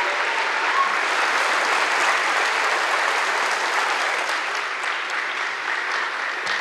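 A large audience applauding steadily, easing off slightly near the end.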